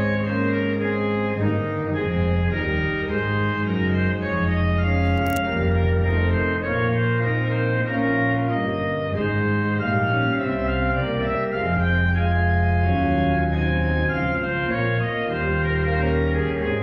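Church pipe organ playing sustained full chords over deep pedal notes, the chords changing every second or so.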